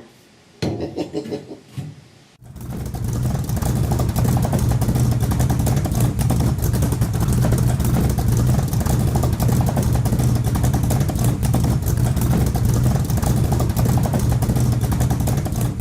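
MIG welder running a continuous bead on sheet-metal patch panel, a steady dense crackle over a low hum, starting about two and a half seconds in after a short quiet spell.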